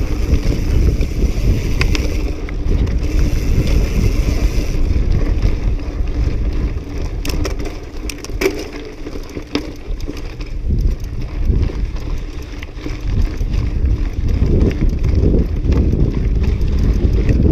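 Mountain bike riding fast down a rocky, gravelly trail: steady rumble of wind on the microphone and tyres on loose stone, with scattered sharp clicks and knocks from the bike rattling over rocks.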